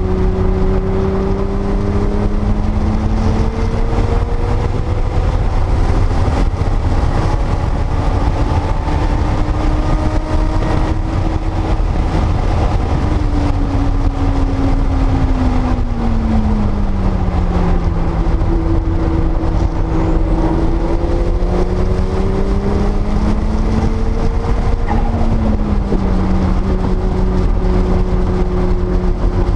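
1979 Porsche 930 Turbo's turbocharged air-cooled flat-six heard from on board at track pace, its engine note climbing slowly and then dropping away twice as the car accelerates and lifts. A heavy, steady low rumble runs underneath.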